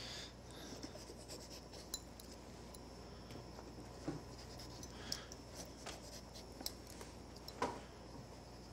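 Small pointed carving knife cutting and scraping into a cantaloupe's rind and flesh: faint, irregular little clicks and scratches, the strongest one near the end.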